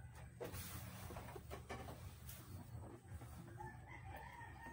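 A rooster crowing once, a long arched call starting past the middle, after a few soft knocks as ingredients go into a wok of water over a wood fire.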